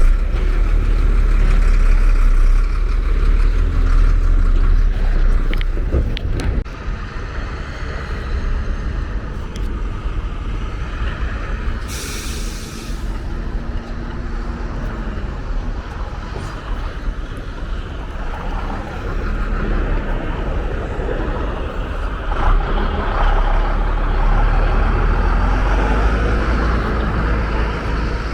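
Road traffic passing, with engines humming and a low rumble, and a short sharp hiss about twelve seconds in.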